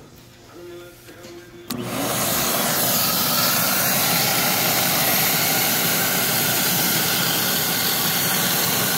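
Portable carpet extractor switched on: a click just under two seconds in, then its vacuum motor starts and runs at a loud, steady whir.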